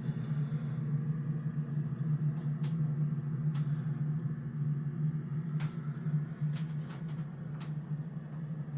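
A steady low hum runs throughout, with several light clicks or taps scattered through the middle and later part.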